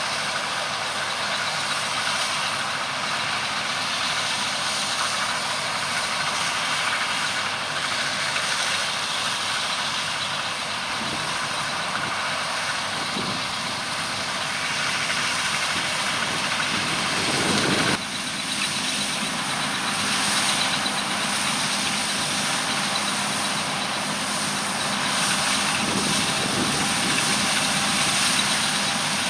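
Heavy diesel harvest machinery running steadily, with an abrupt change in the sound about two-thirds of the way through.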